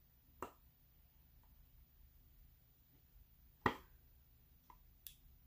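A few sharp clicks and taps from a clear plastic package being handled in the hands, the loudest about three and a half seconds in, over faint room tone.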